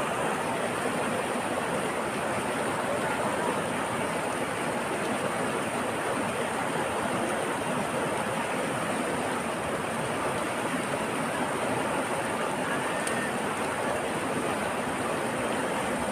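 Shallow mountain river rushing over boulders and rapids: a steady, unbroken water noise.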